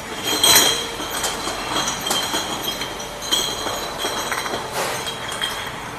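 Glass bottles clinking and ringing against one another and the machine as they pass through an industrial bottle washing and brushing machine, over a steady mechanical running noise. There are repeated clinks, the loudest about half a second in.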